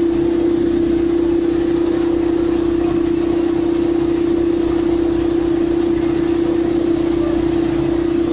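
Heavy pile-driving machinery running steadily, a constant hum with one strong held tone over a low engine rumble.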